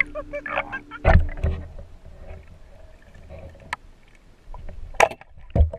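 Water sloshing and splashing around a GoPro mounted on a spear as it dips from the surface to underwater, muffled, with a few sharp knocks: one about a second in, another partway through and two near the end.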